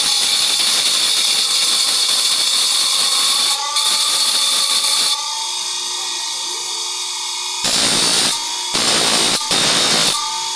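Motor-driven abrasive grinding wheel grinding the teeth of a saw blade: a steady hissing grind for about five seconds, then the wheel spinning free with a quieter whir, then four short grinding passes in quick succession as a toothed blade is pressed against it again.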